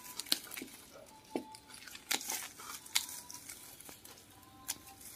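Bonsai pruning shears snipping shoots off a ficus tree: about seven short, sharp snips at irregular intervals, with leaves rustling as the branches are handled.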